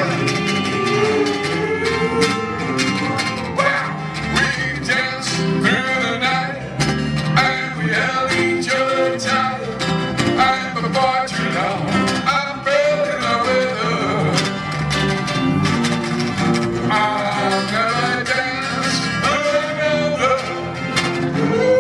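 Live band playing sixties pop music, with guitars to the fore over a steady beat.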